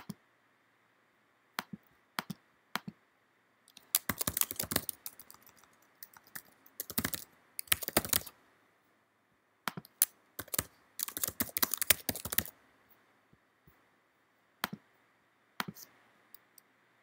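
Typing on a computer keyboard in three short bursts, with single mouse clicks scattered between them.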